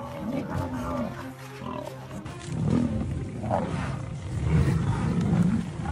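Lions growling and snarling, with the low rumbling growls getting louder through the second half.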